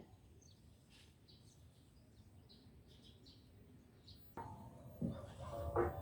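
Small birds chirping faintly, a scattering of short high chirps. About four seconds in, a louder sound with steady tones comes in.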